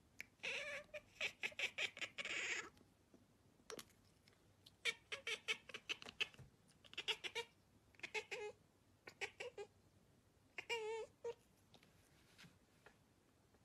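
Domestic cat chattering while watching out of a window: about six short runs of rapid clicking chirps, the first the longest, the last a brief warbling trill about eleven seconds in.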